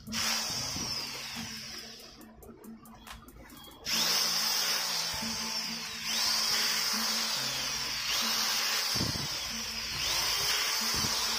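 Electric screwdriver motor whining as it drives the housing screws of a drill back in. It runs briefly, pauses for about two seconds, then runs again in several back-to-back stretches, one screw after another.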